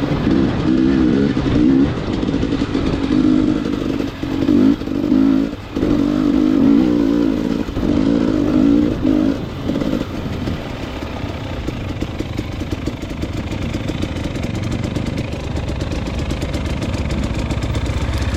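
Motorcycle engine running, its pitch rising and falling with the throttle for the first ten seconds or so, then settling to a steadier sound.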